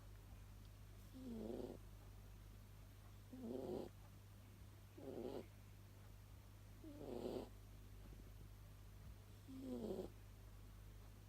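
Scottish Fold cat snoring, one short snore on each breath about every two seconds, five in all.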